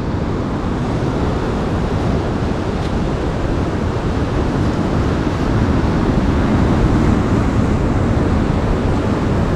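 Ocean surf breaking and washing over a rocky shore, a steady rush of water, with a low wind rumble on the microphone.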